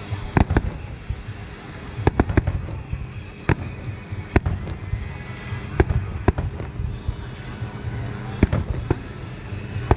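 Aerial firework shells bursting: about ten sharp booms at irregular spacing, several coming in quick twos and threes.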